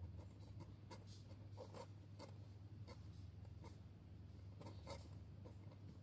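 Faint, soft scratchy scrapes on cardboard, about eight over a few seconds, from a newborn kitten's paws moving against the box floor, over a steady low hum.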